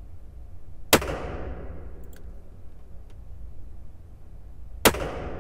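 Two shots from a Manurhin MR-73 revolver being test-fired into a bullet trap, about four seconds apart, each ringing on in the enclosed firing booth. This is the factory's function and sight-setting test fire.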